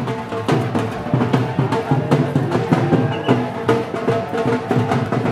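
Music with drums beating a steady rhythm over held low tones.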